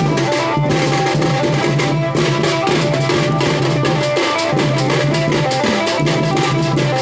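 A drum band playing a fast, dense beat on snare-type drums, a stand-mounted set of small drums and large barrel drums, with a stepwise melody running over the drumming.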